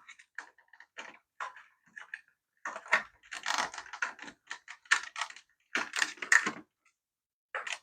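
Irregular clicking and rattling of small hard plastic parts being handled, with quick clusters of clicks about three seconds in and again about six seconds in.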